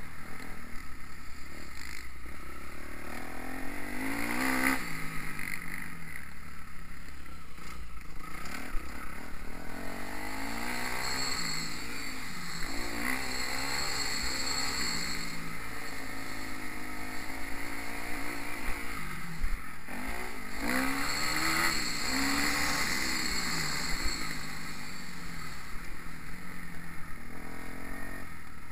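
Kawasaki KX250F motocross bike's four-stroke single-cylinder engine being ridden hard round a dirt track, revving up and dropping back again and again as the throttle is worked through the corners and gears.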